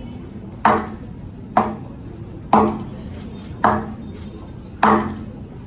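Taiko drum struck with wooden sticks: five single heavy strokes, about one a second, each ringing briefly with a low tone.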